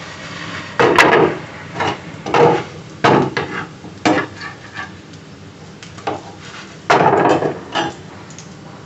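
Irregular knocks and clinks of kitchen utensils against dishes, about a dozen, the loudest about a second in and near seven seconds in.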